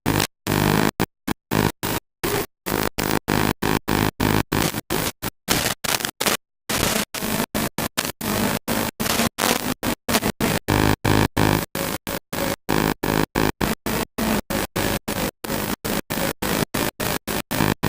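Music mixed with noise and static, chopped by brief dropouts to silence several times a second.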